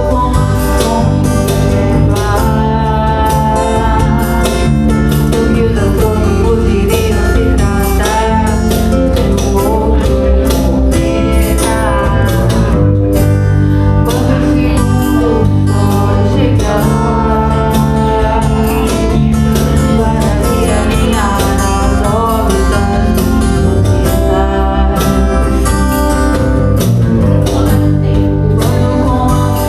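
A band playing a song: a voice singing over guitar, with a strong bass line and a steady drum beat.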